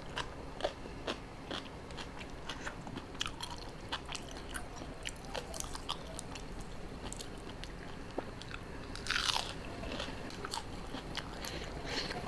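Close-miked crunching and chewing of spicy seafood papaya salad: many small sharp crunches in an irregular run. A short louder rush of air comes about nine seconds in.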